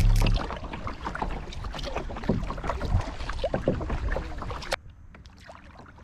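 Kayak paddle strokes, with water splashing and dripping off the blade in irregular bursts. About three-quarters of the way through it cuts off suddenly to faint background.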